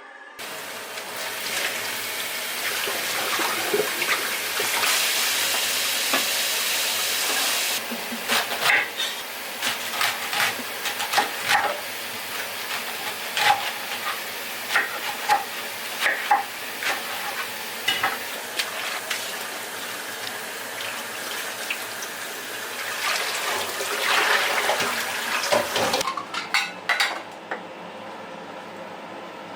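Home cooking sounds: a steady hiss for several seconds, then a utensil clinking and scraping against cookware, with a second stretch of hiss near the end.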